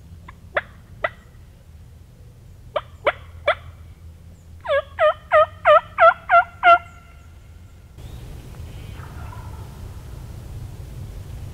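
Turkey calling: a few sharp clucks, then a run of seven loud, evenly spaced hen yelps, each note dipping and rising in pitch, made on a hand-held turkey call. Near the end there is a steady wind hush.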